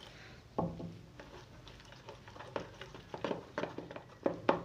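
A spoon stirring thick gram-flour batter in a plastic box, scraping and clicking against the sides and bottom in irregular strokes that come faster in the second half. A single knock about half a second in, as water is poured into the flour.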